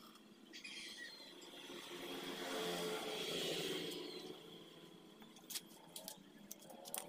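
A motor vehicle passing by, its sound swelling and fading over about two seconds. A few sharp clicks follow near the end.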